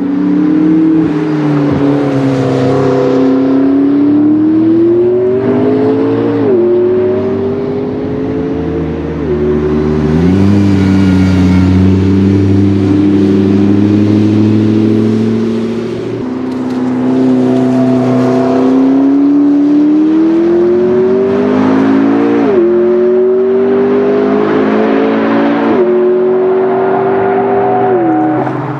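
McLaren P1's twin-turbo V8 accelerating hard through the gears. The revs climb and drop sharply at several upshifts, with a stretch of low, steady revs near the middle.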